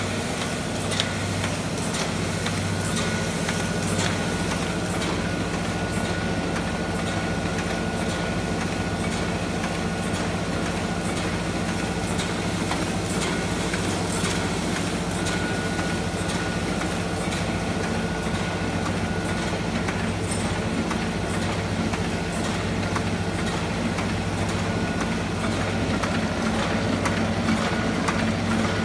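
Ryobi 3302M two-colour sheetfed offset printing press running: a steady mechanical hum with light, repeated clicks.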